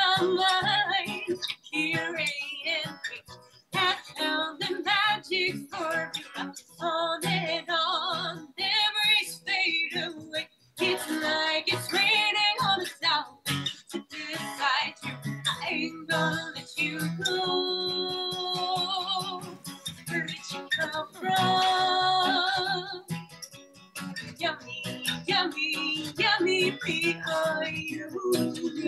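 A song played live, with a singing voice over guitar.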